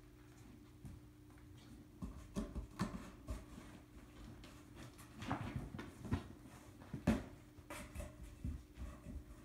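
Irregular soft knocks and rustles, the sharpest about seven seconds in, over a steady low hum.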